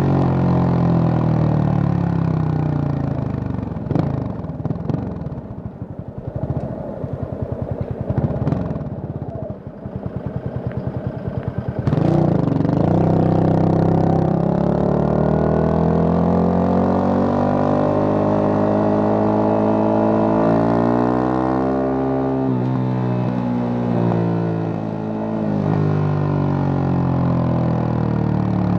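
Yamaha FZ25's single-cylinder engine through an MTG MotoTunings aftermarket exhaust, with the revs falling off and the exhaust popping and crackling on the closed throttle. About twelve seconds in it accelerates hard, the pitch rising through the revs, dropping at a gear change and climbing again.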